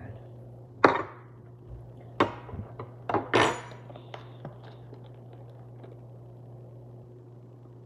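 A plastic drink bottle being handled close to the microphone: a handful of sharp clicks and crackles of plastic in the first few seconds, then only a steady low hum.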